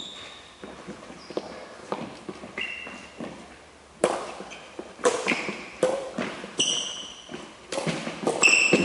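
Badminton rally on a wooden hall floor: sharp cracks of rackets striking the shuttlecock about once a second from about four seconds in, with short high squeaks of sneakers on the court. Before the serve there are only faint taps and footsteps.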